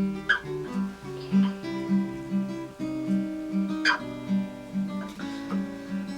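Acoustic guitar music: a run of picked notes with a few strummed chords.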